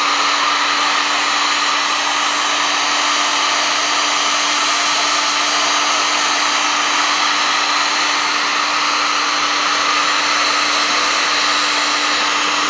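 Electric heat gun running steadily, its fan blowing with a constant hum, as it heats a freshly wet-applied vinyl stripe to set it.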